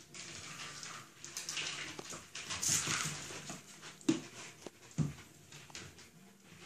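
Eight-week-old puppies playing and scuffling in a wire pen, a rustling hiss of paws and toys with two short sharp sounds about four and five seconds in.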